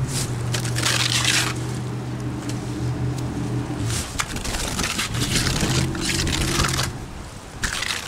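A steel trowel scraping wet cement stucco across a block wall in several long strokes. A steady machine hum from an unseen motor runs underneath, dropping out briefly about four seconds in and fading near the end.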